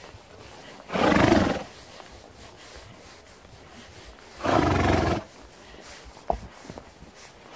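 A ridden horse blows out hard through its nostrils twice, each a short rushing breath, about three and a half seconds apart. A single sharp click follows near the end.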